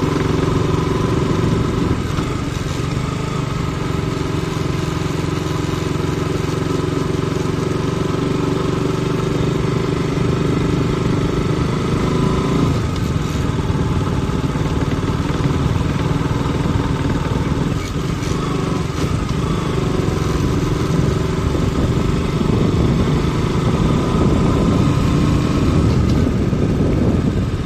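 Motorcycle engine running steadily, with its note shifting slightly about halfway through.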